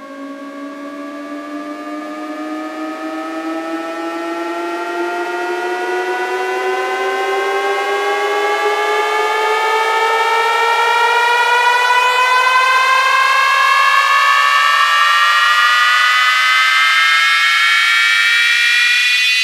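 Electronic riser from a DJ track intro: a buzzy synthesized siren-like tone with a rising noise wash, gliding slowly upward in pitch and swelling in loudness as it builds toward the drop.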